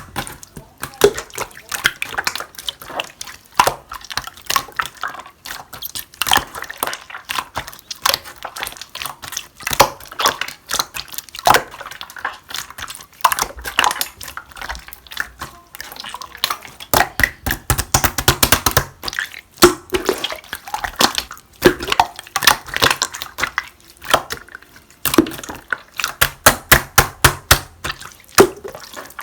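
Clear slime being squeezed and pressed by hand, giving rapid runs of crisp pops and clicks from trapped air bubbles, with occasional wet plops.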